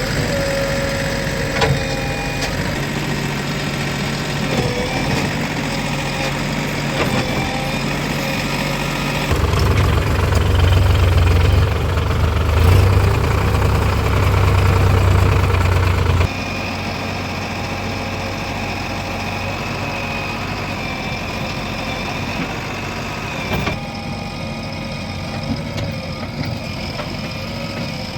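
Heavy diesel engine running at work. About nine seconds in, its low drone grows much louder and deeper for around seven seconds, then drops back abruptly to a steadier running note.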